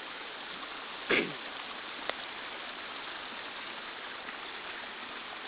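Steady hiss of heavy rain and runoff water rushing over the ground. About a second in, a brief sound falls in pitch, and a sharp click follows about a second later.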